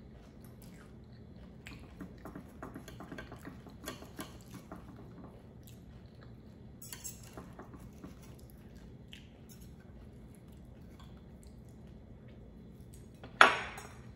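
A knife and fork cutting through a fried chimichanga on a plate: a run of light clinks and scrapes of cutlery against the plate. There is one sharp, loud knock about a second before the end.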